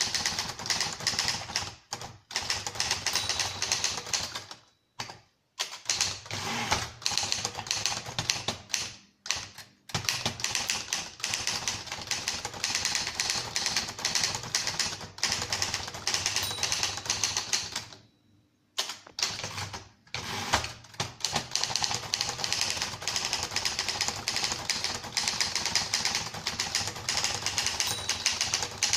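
1950s Torpedo standard manual typewriter, badged Remington Rand, being typed on at a quick pace: rapid runs of key and typebar strikes. The runs break off briefly about five, nine and eighteen seconds in.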